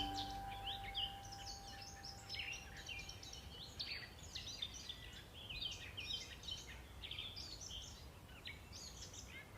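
Faint birdsong: many small birds chirping and twittering in quick short calls, over a low background hum, as music fades out at the start.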